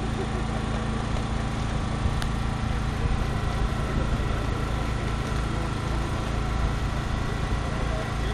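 An engine running steadily at idle: an even low hum with a few faint steady higher tones above it, and one small click about two seconds in.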